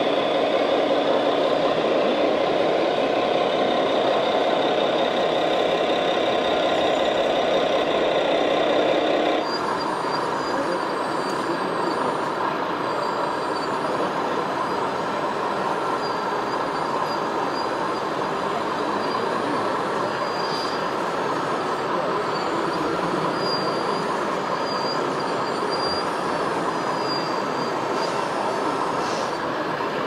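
Scale radio-controlled Scania truck running with its sound module playing a diesel engine. The sound changes abruptly about nine seconds in to a steadier mechanical whine from a radio-controlled hydraulic excavator working.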